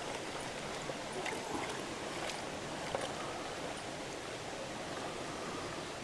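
Steady rush of a shallow, rocky river, with water washing around a plastic gold pan held down in the current. A few faint clicks come through in the first half.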